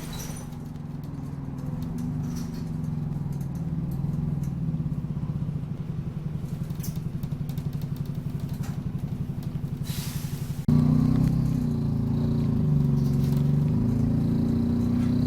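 Optare Solo bus's diesel engine heard on board, running steadily with a fast even pulsing. A short hiss comes about ten seconds in, then the engine note jumps suddenly louder and starts rising and shifting as the bus pulls away under power.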